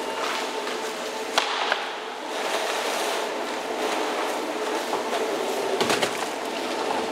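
Shipboard crane machinery running with a steady hum while hoisting a load of frozen tuna, with a sharp clank about a second and a half in and a few knocks near the end.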